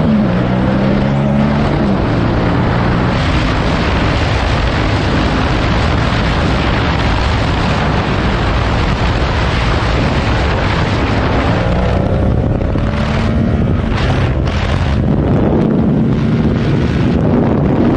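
Yamaha motorcycle engine revving hard at high speed, heavy wind rushing over the helmet-mounted microphone. The engine note rises and falls with gear changes in the first couple of seconds and again from about twelve seconds in, with the wind rush drowning it out in between.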